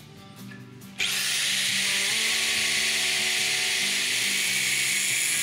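Angle grinder cutting through a steel linear guide rail: about a second in the disc starts with a quick rising whine, then a loud steady grinding hiss as it cuts the metal, which stops abruptly near the end.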